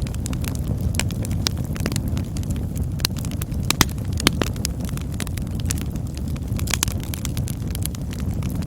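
Campfire burning: a steady low rumble of flames with frequent sharp crackles and pops of burning wood, the loudest pops a little under four seconds in and again just after.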